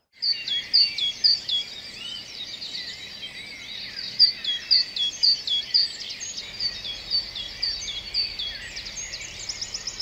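Several songbirds singing at once: one repeats a short down-slurred note about twice a second among other chirps, and a fast trill comes in near the end, over a low steady background hiss.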